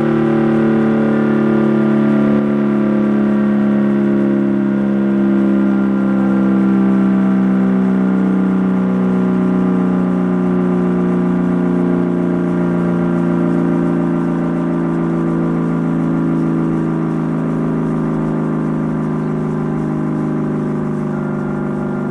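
Sterling M-10 electromechanical fire siren sounding a steady, loud tone during its weekly test alert, its pitch sagging slightly in the second half.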